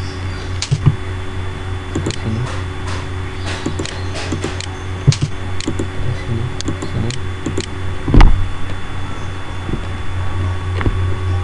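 Scattered clicks of a computer mouse and keyboard as commands are entered and points picked, over a steady low hum. A louder thump comes about eight seconds in.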